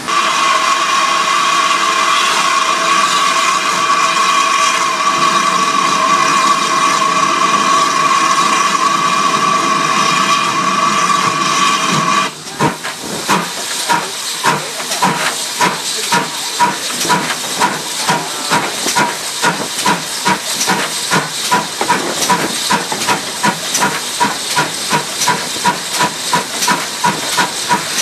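GWR 4200 Class 2-8-0T tank locomotive No. 4270: a loud, steady steam hiss with a whistling tone, which cuts off abruptly about twelve seconds in. It gives way to an even, quick rhythm of hissing exhaust beats as the engine moves off under steam.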